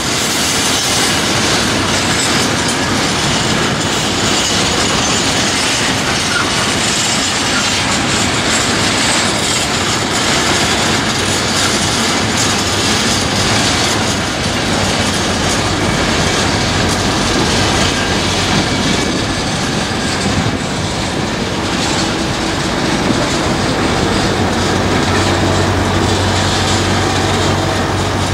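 Long intermodal container freight train passing close by: a loud, steady clatter and rumble of wagon wheels on the rails, with rhythmic clickety-clack. A low steady hum comes in near the end.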